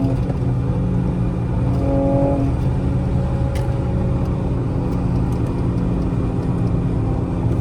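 Car cabin noise while driving: a steady low rumble of engine and road. A short held tone sounds about two seconds in.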